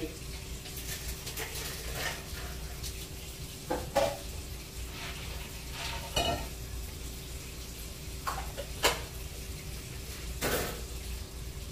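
Dishes and cups clinking and knocking, about four sharp knocks spread through, over a steady hum and a faint sizzle from pots cooking on the stove.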